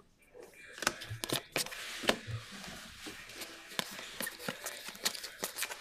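A stack of 2023 Donruss Optic UFC trading cards being flipped through by hand: the cards slide against each other in soft rustles, with a string of sharp little clicks as each card is moved from the stack, starting about half a second in.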